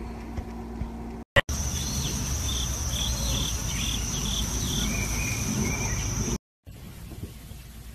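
Steady high-pitched insect drone, crickets or similar, with a quick run of about seven short chirps partway through, followed by a few lower chirps. A sharp click comes just before it starts, and the drone cuts off suddenly about two-thirds of the way in.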